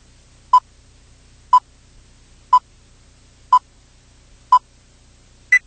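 Film-leader countdown beeps: short electronic beeps exactly a second apart at one pitch, five in all, then a final beep an octave higher near the end. A faint low hum sits underneath.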